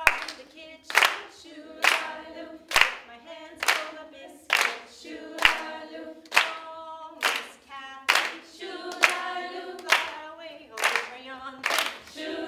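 A group of women singing a song together, unaccompanied, clapping their hands on the beat a little more than once a second.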